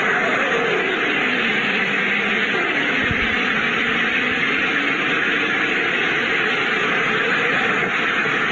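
Black hole sonification playing: a steady rushing hiss with a low tone that glides downward over the first two seconds, then fainter wavering tones under the hiss.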